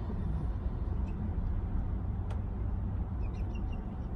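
Low steady rumble of a parked car running at idle, heard from inside the cabin, with one faint click about two seconds in.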